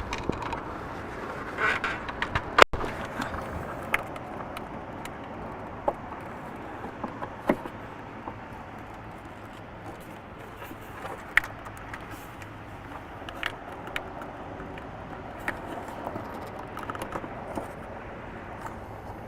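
Scattered light clicks and knocks of plastic engine-bay parts being worked loose and handled, such as a push pin and the fuse box, over a steady low background noise.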